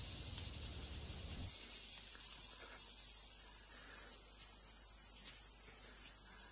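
Outdoor insect chorus: a high, steady chirring that pulses evenly, coming in about a second and a half in as a low rumble cuts off.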